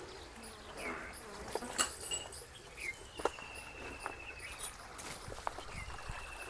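A high, pulsing trill, slightly falling in pitch, repeats about every three seconds over quiet farmyard ambience, with a few short chirps and light clicks in between.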